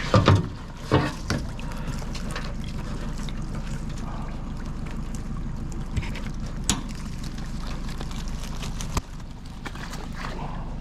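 Water trickling and dribbling, likely off a freshly lifted crab pot, over a steady low hum. A cluster of loud clattering knocks in the first second or so, and a few single sharp knocks later.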